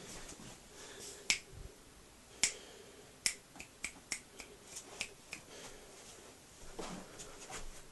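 Fingers snapping about a dozen times in short, sharp snaps: a couple spaced out, then a quicker run of about three a second through the middle.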